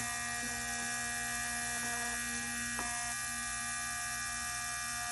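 Small USB-rechargeable handheld engraving tool's electric motor running steadily at a constant pitch, kept plugged into its charger for a little more power. One faint click about three seconds in.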